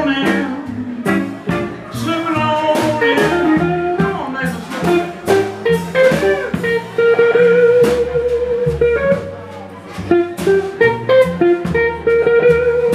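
Live blues band playing an instrumental passage: electric guitar, upright bass and drums. A harmonica played into a microphone holds a long bent note in the middle.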